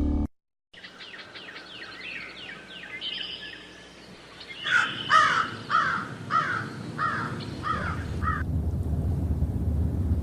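Birds calling: first a run of quick, high, downward-sweeping chirps, then about eight louder repeated calls at roughly two a second, which stop a couple of seconds before the end, leaving a low steady background noise.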